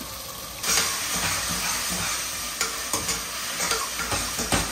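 Tomato-onion masala with freshly added coriander and mint frying and sizzling in oil in a pressure cooker pan, stirred with a steel spoon that scrapes and clinks against the pan. The sizzling grows suddenly louder about half a second in as the stirring starts.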